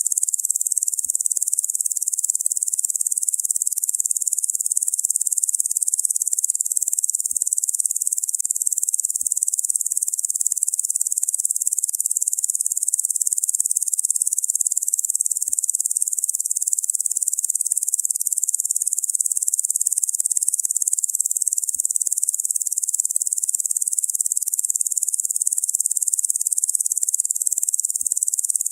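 A dense chorus of locusts making a steady, high-pitched buzzing drone that never breaks or changes.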